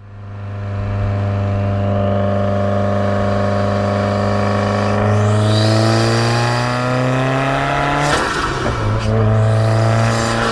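Turbocharged Subaru WRX engine under way, holding a steady note and then accelerating, its pitch climbing with a high turbo whistle rising over it. Near the end comes a short rush of noise, and the engine note drops back and settles.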